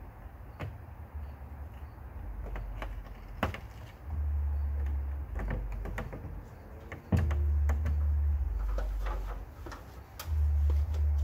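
Clicks and knocks of a frosted plastic RV door window pane being worked loose and lifted out of its screwless frame. Three stretches of low rumble, the loudest sound here, come in about four seconds in, seven seconds in and near the end.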